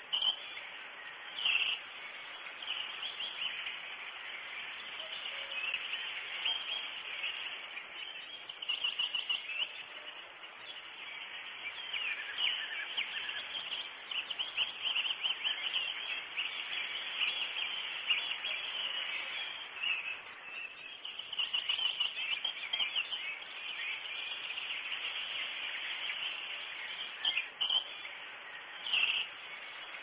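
Birds chirping and trilling, with short calls repeating through, over a steady hiss of insects.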